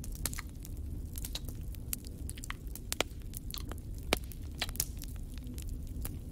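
Scattered small clicks and taps of painted clay miniature kitchen pieces being handled and set down, the sharpest about three and four seconds in, over a low steady hum.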